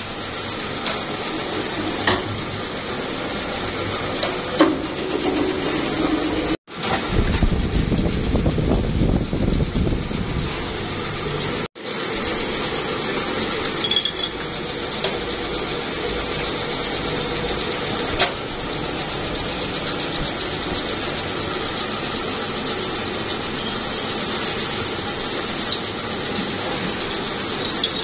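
Steady hum of plastic-moulding machinery running, with a louder low rumble for a few seconds in the middle and a few sharp metal clicks as the steel mould is handled. The sound breaks off for an instant twice.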